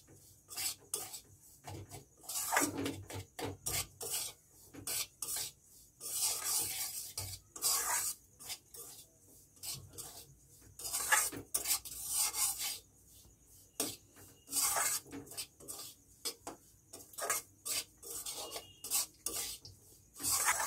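Flat metal spatula scraping and turning semolina against the bottom of a metal kadai, a dry rasping scrape repeated in irregular strokes. The semolina is being roasted in ghee until reddish, stirred constantly so it does not stick to the bottom.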